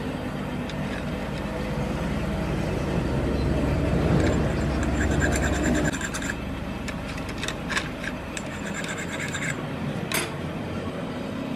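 Metal scraping and rubbing over a steady workshop machine hum, which drops away about six seconds in, followed by a few sharp clicks.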